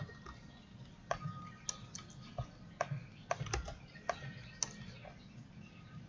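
Computer keyboard keys clicking as code is typed: a dozen or so separate keystrokes at an uneven pace, with short gaps between bursts.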